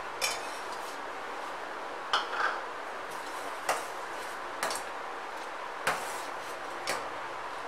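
Steel ladle stirring thick carrot kheer in a stainless-steel pot, knocking sharply against the pot's side now and then, about seven clinks at irregular intervals over a steady low hiss. This is the final stir as cardamom powder is mixed in.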